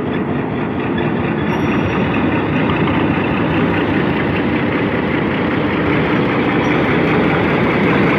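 Diesel locomotive engine running heavily as the train pulls away, growing slightly louder.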